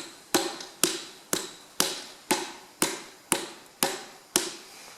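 Sharp, evenly spaced taps, about two a second, on a Perkins piston being driven down the cylinder bore of a Massey Ferguson 135 engine block, pushing it through the ring compressor so the conrod seats onto the crankshaft journal.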